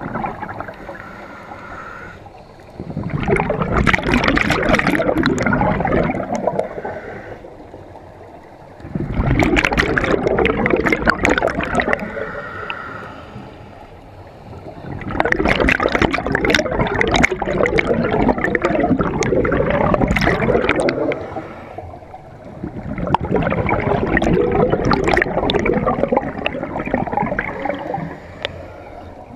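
Scuba diver breathing through a regulator underwater: four long bursts of exhaled bubbles gurgling out, a few seconds each, with quieter hissing inhalations in between.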